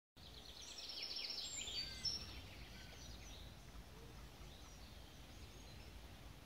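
Faint woodland birdsong: quick high chirps and trills, busiest in the first two seconds and then scattered, over a low steady background noise.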